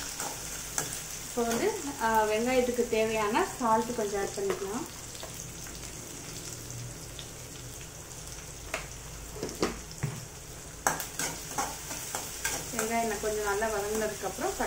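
Chopped small onions and curry leaves sizzling in hot oil in a steel kadai, with a metal ladle scraping and tapping the pan as they are stirred. A wavering pitched sound rises over the frying twice, about two seconds in and again near the end.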